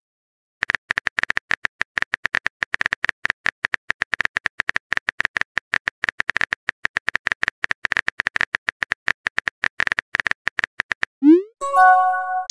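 Rapid keyboard tap sound effects of a chat app as a message is typed, each tap a short click with a ringing tone. Near the end, a rising swoosh and a short chime as the message is sent.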